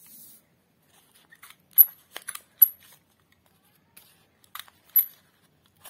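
Handheld plastic single-hole paper punch snapping through white paper: a few sharp clicks, the loudest a little under two seconds in and again about a second later, with another near the end.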